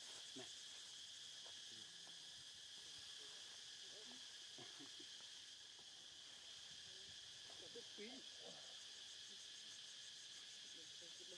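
Faint, steady chorus of insects: a constant high-pitched drone.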